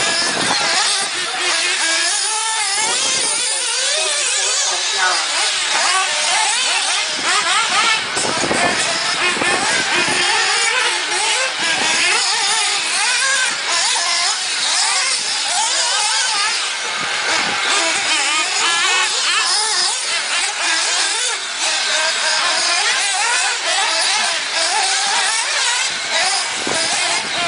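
Several radio-controlled off-road cars racing, their motors revving up and down in overlapping high-pitched whines.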